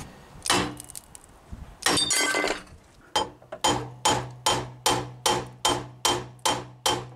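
A hammer knocking on metal at a car's brake back plate: two separate knocks with a little clinking, then a quick, even run of about ten ringing taps, roughly two and a half a second. This is the drum brake adjuster being knocked out of the back plate.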